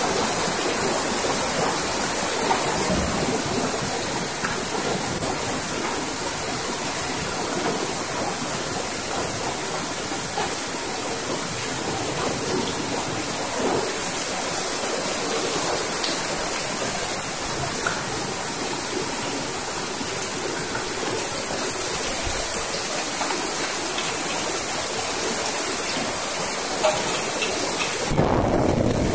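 Steady, even hiss of fried rice frying in a wok over a gas burner, breaking off briefly near the end.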